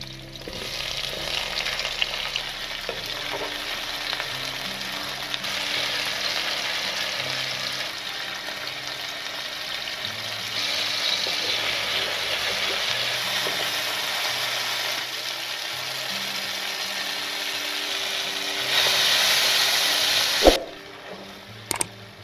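Garlic, tomatoes and onions sizzling in hot oil in a non-stick wok, stirred with a wooden spatula, a steady hiss that steps louder and softer a few times. Near the end a sharp knock, then the sizzling stops.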